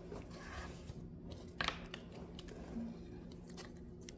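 Pokémon trading cards being handled and flipped through: faint sliding rustles and light taps and clicks, with one sharper tap about a second and a half in.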